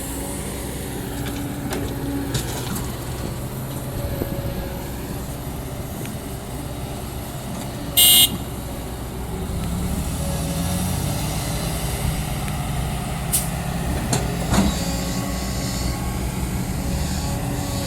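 Kobelco SK200 excavator's diesel engine running under load as the bucket digs and pries at hard rock, the engine pulling harder about ten seconds in. A brief, loud, high screech about eight seconds in, and a few sharp knocks later.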